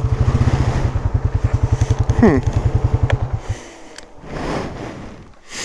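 Polaris Sportsman 570 ATV's single-cylinder engine running with a steady low putter, then shut off about three and a half seconds in.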